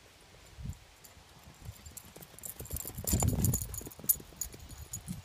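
Rapid low thudding of a greyhound's paws galloping on grass, building up and loudest about three seconds in.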